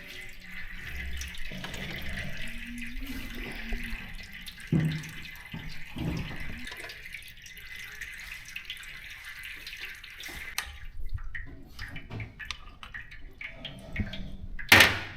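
A steady stream of liquid running and trickling for about ten seconds, followed by a series of knocks and clatter, the loudest near the end.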